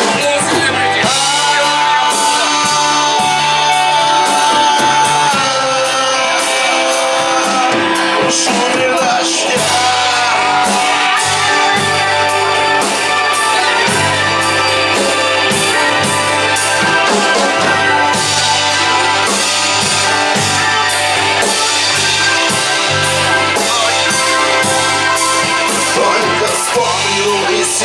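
Rock band playing an instrumental passage: electric guitar carrying a melody over bass and a steady drum beat.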